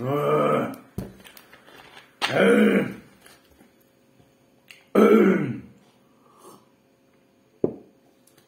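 A man's voice making three short wordless sounds, each under a second and about two and a half seconds apart, like throat clearing or grunts, with a couple of sharp clicks in between.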